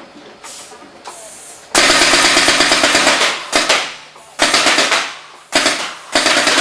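Paintball guns on a homemade turret firing rapid automatic bursts. A long burst starts about two seconds in, followed by several shorter bursts.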